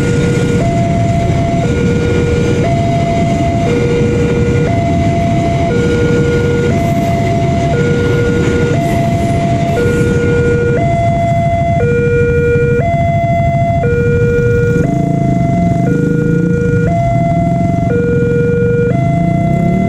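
Railway level-crossing alarm sounding from the horn loudspeaker on the crossbuck post: an electronic two-tone signal switching between a low and a high note about once a second, warning that a train is passing. Underneath it is the low rumble of a fuel tank-wagon freight train going over the crossing.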